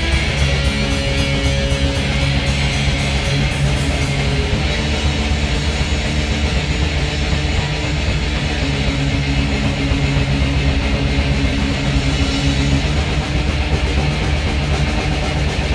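Band jamming live, electric guitar playing over bass, with no pauses.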